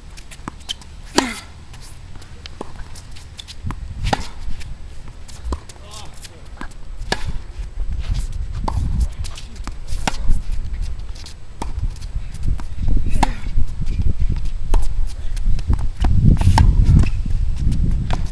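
Tennis rally on a hard court: sharp pops of a racket striking the ball about every three seconds, with lighter ball bounces and shoe steps in between. A low rumble grows louder in the second half.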